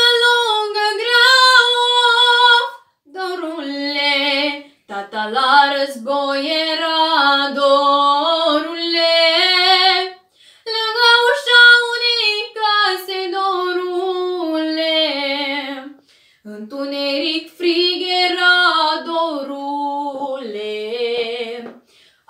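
A girl's solo voice singing a folk song unaccompanied, in several long phrases with short breaths between them. The voice carries a light echo from a small tiled room.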